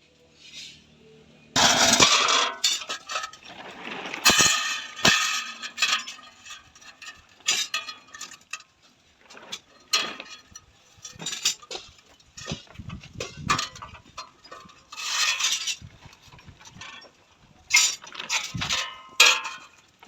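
Irregular clanks, clinks and scrapes of sheet iron being handled and struck while a tawa is worked by hand, in uneven bursts with no steady hammer rhythm.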